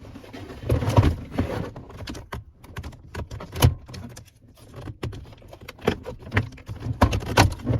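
Plastic center console trim being worked into place inside a car: irregular knocks, clicks and scraping as the tilted console rubs and bumps against the surrounding panels. There is a longer scrape about a second in and sharp knocks midway and near the end.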